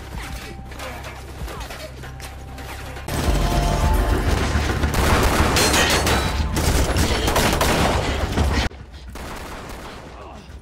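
Gunfire in a shootout: scattered shots at first, then a dense, much louder volley from about three seconds in. The volley breaks off about two seconds before the end, leaving a quieter stretch.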